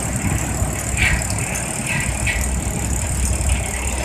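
Sawmill machinery running: a steady low mechanical rumble with rattling, and a few short higher-pitched squeaks about one to two seconds in.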